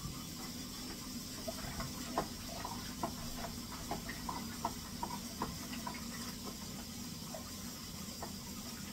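A long plastic spoon stirring beer-kit wort in a plastic fermenting bucket: irregular light knocks and scrapes of the spoon against the bucket's sides and bottom, with liquid sloshing. A steady low hum runs underneath.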